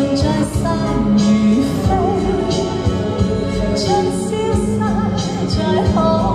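A woman singing a Mandarin-language pop ballad live into a handheld microphone over a recorded backing track, both played through a small PA; the vocal line comes in about two seconds in.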